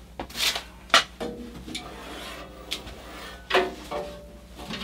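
Metal parts of a Caselabs Magnum SMH10 aluminium computer case knocking and clanking as the chassis is handled and shifted. There are several sharp knocks, the sharpest about a second in, and some are followed by a brief ringing tone from the metal.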